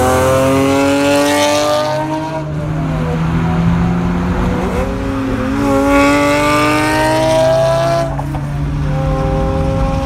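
Nissan 370Z's V6 accelerating hard at full throttle: the engine climbs in pitch for about two seconds, drops at a gear change, then climbs again from about four and a half seconds until another drop at eight seconds.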